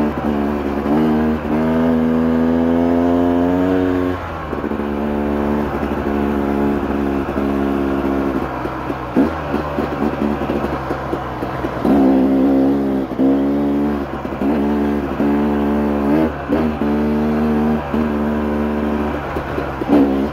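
Dirt bike engine running under way and pulling steadily at first. From about twelve seconds in, the pitch rises and falls repeatedly as the throttle is rolled on and off.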